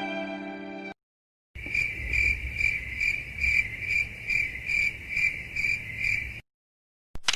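Crickets chirping in an even, pulsing trill, the stock 'awkward silence' comedy sound effect. It follows the last second of a sad violin cue.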